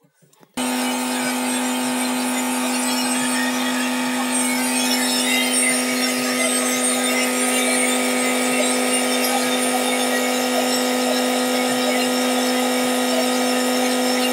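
A small electric motor-driven blower switching on abruptly about half a second in and running steadily: a constant motor hum with a rush of air.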